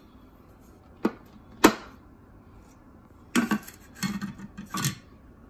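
Hard plastic clicks and knocks of a Thermomix TM5's mixing-bowl lid being fitted and the measuring cup set into the lid: two sharp clicks about a second in, then a short run of clatter a little past the middle. The mixer motor is not yet running.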